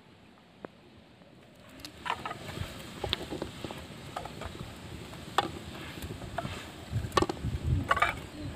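Egg frying in bubbling oil in a black iron wok: sizzling with irregular pops and spits, which set in about two seconds in.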